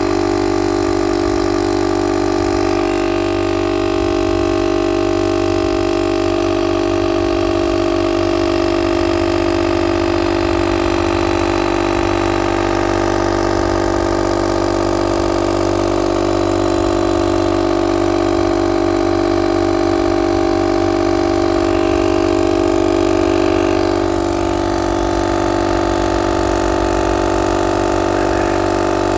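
Motomaster 12 V direct-drive air compressor running continuously under load while pumping up a car tyre, a steady motor hum. Its note dips slightly about three-quarters of the way through.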